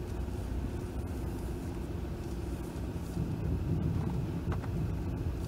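2020 Jeep Gladiator's tyres growling and crunching over packed snow as it creeps along, under the low steady run of its engine, heard from inside the cab.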